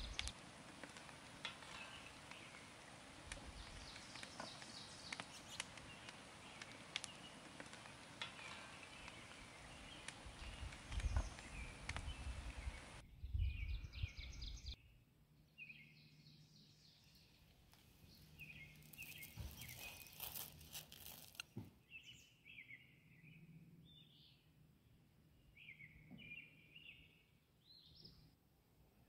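Hot oil sizzling as rice kibbeh deep-fry in a cast iron pan: a steady hiss with small crackles, with wind rumbling on the microphone. About halfway through it cuts to quieter open air with birds chirping.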